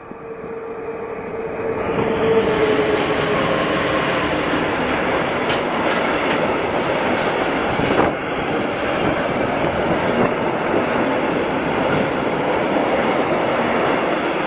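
Electric locomotive and a long container freight train passing close by. The sound swells over the first two seconds as the locomotive arrives, with a steady hum that fades. Then comes a loud, steady rumble of wagon wheels on the rails, with occasional clicks over the rail joints, one sharp one about halfway through.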